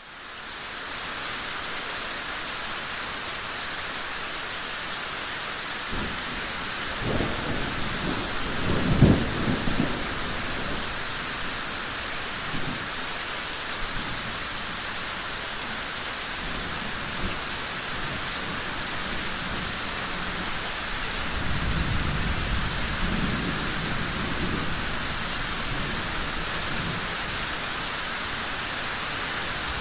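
Thunderstorm downpour hissing steadily. Thunder rumbles about six to ten seconds in, with its loudest clap near nine seconds, and rolls again about twenty-one to twenty-seven seconds in.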